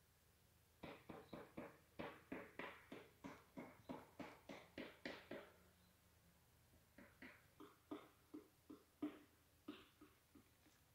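A dog barking faintly in quick runs: a fast series of about four barks a second for several seconds, then after a short pause a slower, looser series.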